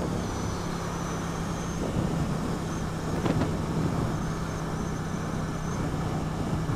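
Triumph Street Twin 900's parallel-twin engine running at steady cruising revs, with a constant engine tone under steady wind noise.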